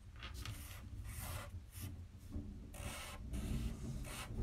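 Felt-tip marker drawing on paper: about five short strokes of the tip rubbing across the sheet, one after another.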